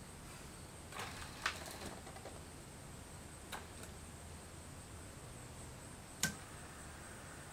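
Homemade robot arm moving under manual control: its cable-drum joint drives run faintly while the arm swings. Several sharp clicks come through, the loudest about six seconds in, followed by a faint steady high whine.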